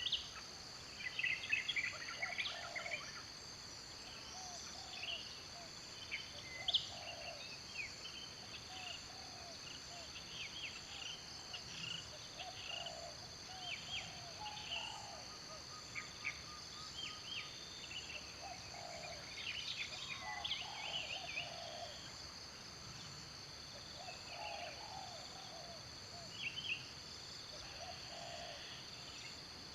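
Outdoor ambience: a steady high-pitched insect drone, with many short bird chirps and calls scattered throughout, some high and some lower.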